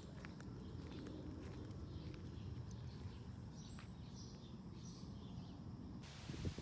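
Faint outdoor ambience: a steady low rumble with a few brief, distant bird chirps in the middle.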